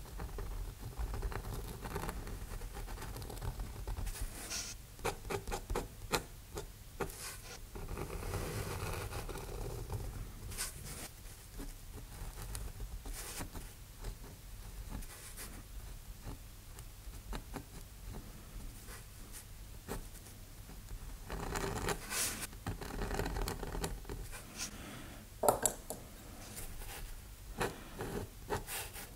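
Steel G-pen dip nib scratching across paper in short, irregular inking strokes. About 25 seconds in there is one sharp click, louder than the strokes.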